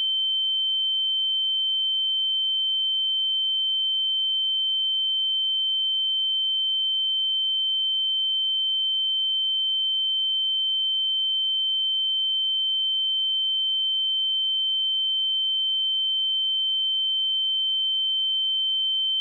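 A steady, pure 3096 Hz sine-wave test tone, a single unwavering high pitch at constant level.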